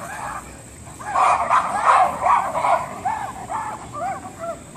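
A troop of geladas calling with many short, high yelps as they chase each other. The yelps are crowded together at first, then come about three a second.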